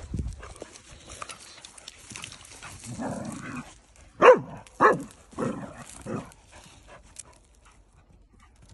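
Dogs at rough play: a short rough stretch, then four short barks about half a second apart in the middle, the first the loudest.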